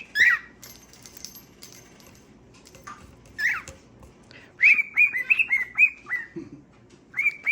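Short whistled notes traded between a person and a pet parrot: a single chirp just after the start and another about halfway, a quick run of about six notes in the middle, and more starting near the end.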